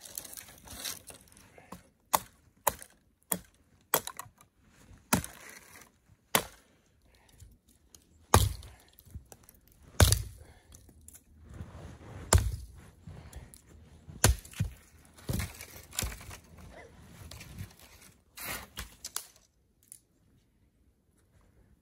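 Axe chopping into the base of a small dry, dead-standing tree: about fifteen sharp wooden chops at irregular intervals, stopping shortly before the end.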